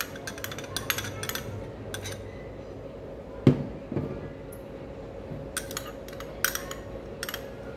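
A steel spoon scraping and tapping a small steel bowl to empty yogurt onto meat in a glass bowl: clusters of quick metallic clinks, with two heavier knocks about halfway. A faint steady hum runs underneath.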